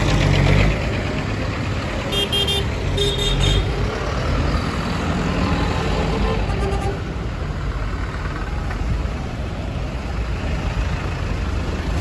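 Tractors driving past close by with their engines running, a small vintage tractor and then a large modern one. A horn gives two short toots about two and three seconds in.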